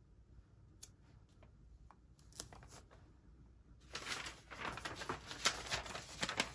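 A few faint taps of paper being shifted by hand, then from about four seconds in a stretch of loud rustling and crinkling as a sheet of protective paper is picked up and laid over the sublimation print.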